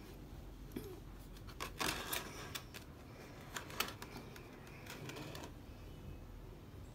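Scattered light clicks and rustling handling noise, a cluster about two seconds in and a few sharp ticks near the middle, over a low steady hum.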